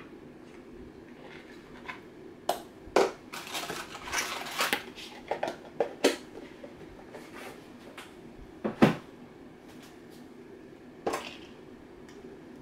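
A spoon and food containers knocking, tapping and scraping against a plastic mixing bowl and the counter: a scattered run of clicks and knocks, the loudest about nine seconds in.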